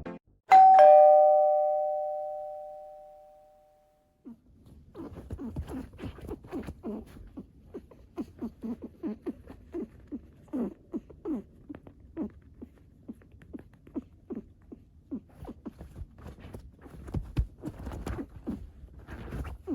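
A two-note chime sound effect rings once and fades away over about three seconds. About four seconds in, a Netherland Dwarf rabbit starts a long run of quick, short grunting calls, a "boo-boo" honk given while it digs excitedly, with scuffling clicks between them.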